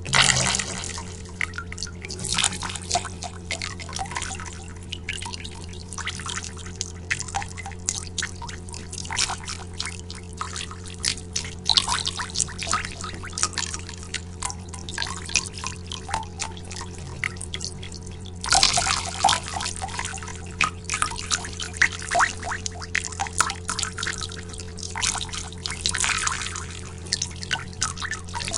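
Water drops falling in quick, irregular succession, each a high-pitched plink with an echo, several at a time in busier stretches, over a steady low hum.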